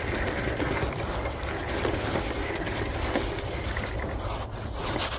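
Steady wind rumble on the microphone outdoors, with a few faint clicks.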